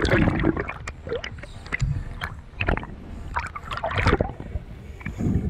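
Water noise heard underwater through a camera housing: rushing and gurgling with irregular knocks and clicks, louder at the start and again near the end.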